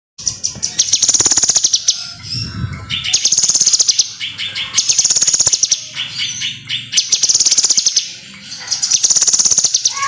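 Caged kinoi songbird singing busily: rapid high trills about a second long, repeated roughly every two seconds, with varied chattering phrases between them.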